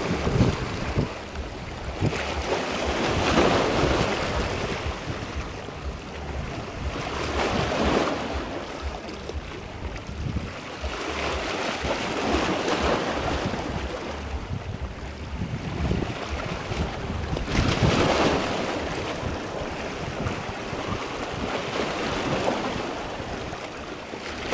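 Small waves washing in over a rocky shoreline, swelling and ebbing every four or five seconds, with wind rumbling on the microphone.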